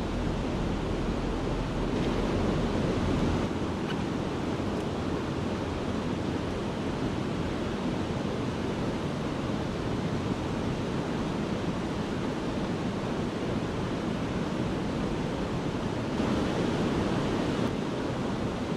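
Steady rush of white water pouring over a river weir into the pool below.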